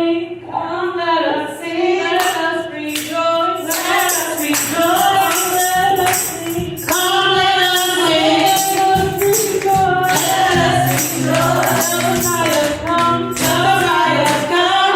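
Voices singing a song over instrumental music, with a tambourine struck in a steady rhythm throughout.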